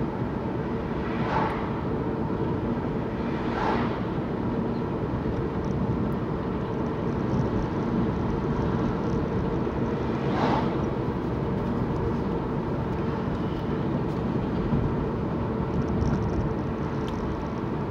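Steady engine and tyre noise of a car driving along a road, heard from inside the cabin, with a faint steady hum and a few brief swells.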